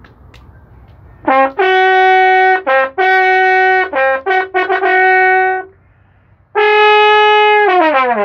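Roman cornu, a large circular brass horn, blown loudly in a string of short blasts, mostly on one pitch with brief dips to a lower note, then one long held note that slides down in pitch at the end. It is sounded as a wake-up call.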